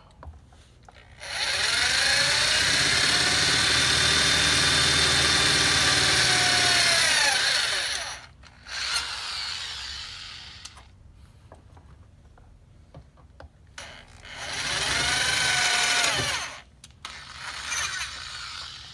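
Electric drill enlarging pilot holes into two small bypass holes in a 160-degree Ford flathead thermostat. It runs once for about seven seconds and once for about two seconds, with a brief blip between, and its whine rises as it spins up and falls as it stops.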